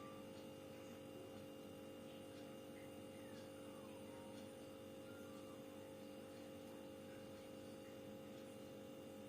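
Faint, steady hum with several constant tones, typical of a running refrigerator compressor.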